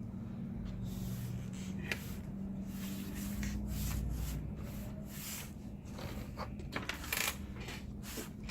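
Light rubbing, rustling and small clicks of hands handling the cables and parts inside an opened MacBook Pro, with sharper clicks about two seconds in and again near the end, over a steady low hum.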